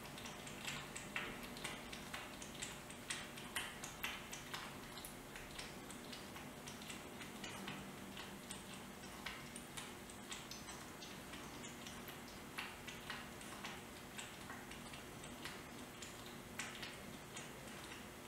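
Munchkin kitten lapping goat milk from a glass dish: an irregular run of small clicks, about two a second.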